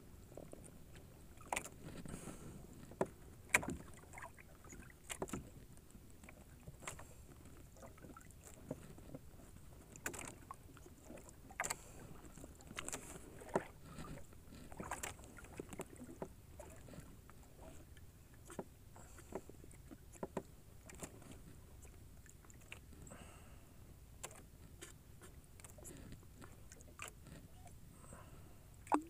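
Small fishing boat at rest on the water: irregular light knocks and clicks of wood and gear on the deck and hull over a low steady background, the loudest knock about three and a half seconds in.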